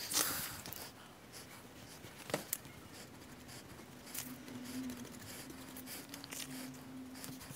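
Soft rustling and light taps of a paper template being handled and laid onto a wooden board, with a couple of sharp clicks, the clearest about two seconds in. A faint steady hum runs through the second half.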